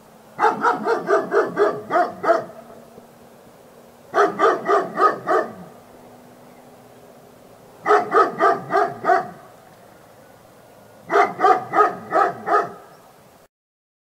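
A dog barking in four quick runs of sharp barks, about four barks a second, each run lasting a second or two with a few seconds' pause between.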